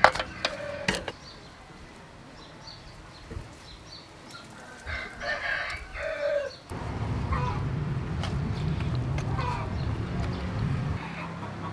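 A rooster crows once about five seconds in, with chickens clucking around it. Sharp clicks near the start come from bamboo skewers knocking against a metal bowl. A steady low hum sets in from about seven seconds on.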